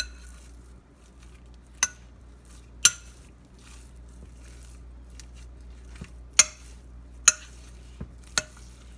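A spoon mixing a thick sausage and cream cheese mixture in a bowl, with about seven sharp clinks at irregular intervals as the spoon strikes the bowl. A low, steady hum runs underneath.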